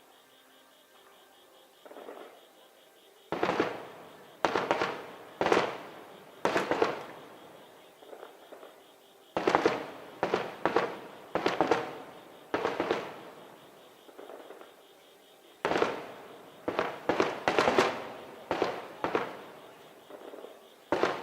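Aerial firework shells bursting in three rapid volleys of sharp bangs, each bang trailing off in a rolling echo.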